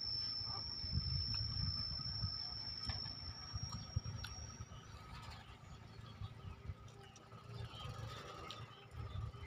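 A person chewing a mouthful of food, with soft smacking clicks and low muffled thuds. A steady high-pitched whine runs behind it and stops about halfway through.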